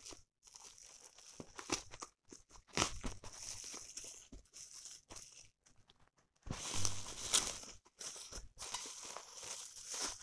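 Bubble-wrap packaging being cut open with scissors and pulled off by hand: irregular plastic crinkling and crackling, loudest a little past the middle.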